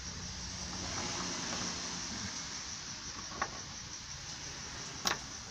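Two small clicks, a little over three seconds in and near the end, as a screw, a flat metal washer and a rubber washer are fitted together by hand. Behind them is a steady hiss with a low hum.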